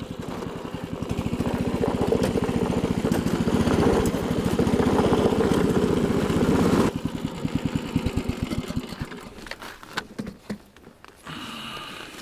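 Snowdog motorized track sled's small gas engine running steadily under way. It grows louder over the first few seconds and cuts off abruptly about seven seconds in. A few light clicks and knocks follow.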